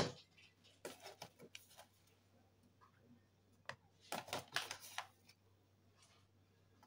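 Handling sounds of scooping flour: a sharp tap right at the start, then two short bouts of paper rustling and light clicks as a plastic cup is dipped into a paper flour bag, about a second in and again about four seconds in.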